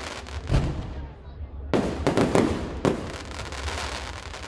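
Aerial fireworks shells bursting: three heavy bangs a little over a second apart, each trailed by a fading crackle from the glittering stars, with smaller pops in between.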